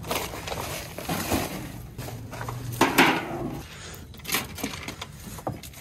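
A crumpled plastic sheet being handled and debris being moved about on a concrete floor: irregular rustling and crackling with scattered knocks, the loudest about three seconds in.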